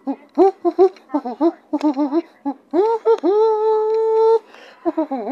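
A person's wordless high-pitched vocalizing, close to the microphone: a run of short sing-song syllables, then one long held note of about a second just after the middle, then more short syllables.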